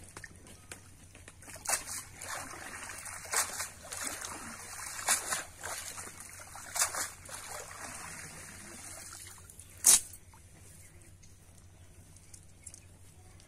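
Water pouring and splashing off a cast net as it is hauled up out of a pond, swelling with each pull about every second and a half. A single sharp knock comes about ten seconds in, after which the water sound dies away.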